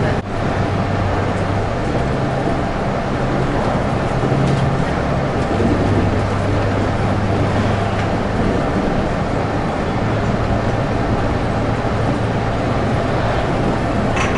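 Low-floor Volvo AC bus running on the highway, heard from inside at the front: a steady diesel engine hum over road and tyre noise. The engine's pitch steps down about five seconds in.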